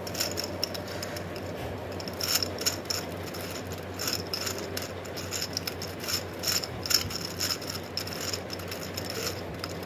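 Plastic gear cube puzzle being turned quickly by hand during a speed solve: an irregular run of clicks and clatter from its turning layers and gears.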